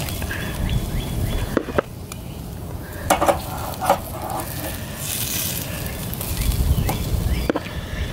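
Metal tongs clinking and scraping against a stainless steel mesh grilling basket as grilled vegetables are scooped out, with a few sharp clicks in the first four seconds over a low rumble.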